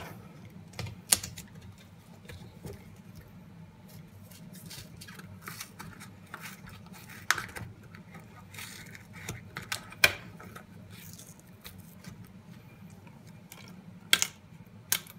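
Scissors snipping open a pack of chopped tomatoes with chili amid scattered kitchen handling clicks and knocks, a few of them sharper: about a second in, around the middle, and twice near the end.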